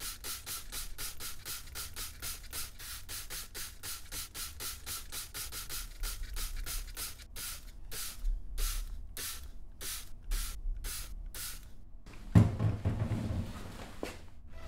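Rhythmic rubbing strokes of paper or cloth wiping window glass, quick at first and then slowing to about two strokes a second, with a sharp thump near the end.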